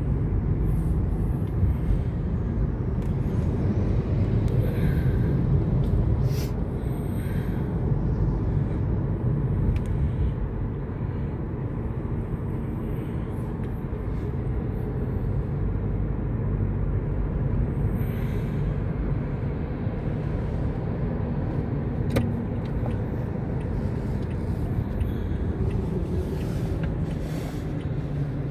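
Steady low rumble of road traffic, a little louder in the first ten seconds, with a few faint ticks on top.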